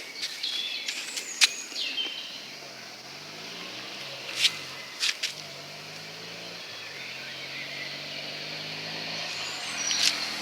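Outdoor ambience with sharp clicks and short high chirps. A low engine-like hum comes in about three seconds in, wavers in pitch, then holds steady.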